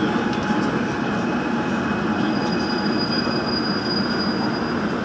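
Gwangju Metro Line 1 subway train running, heard from inside the car: a steady rumble of wheels on rail, with a thin, high, steady whine joining about two seconds in.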